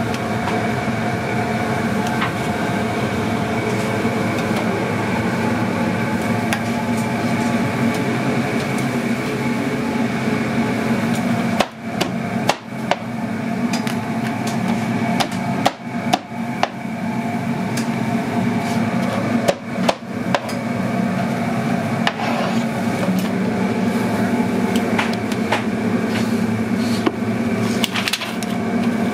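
Jerk chicken being chopped on a cutting board: scattered sharp chops, bunched in the middle and again near the end, over a steady loud kitchen hum.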